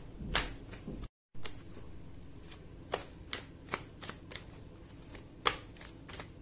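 A tarot deck being shuffled by hand: a run of sharp card snaps and flicks, the loudest near the start and about five and a half seconds in. The sound drops out completely for a moment about a second in.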